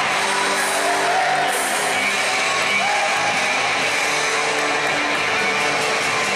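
Music with guitar playing.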